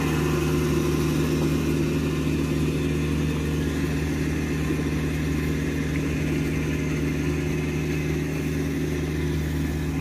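Rice combine harvester's engine running steadily, a constant deep drone with no change in speed.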